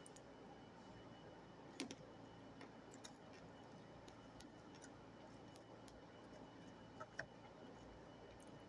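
Near silence with a faint steady hiss, broken by a few small clicks: a quick pair about two seconds in, one more a second later, and another pair near the end.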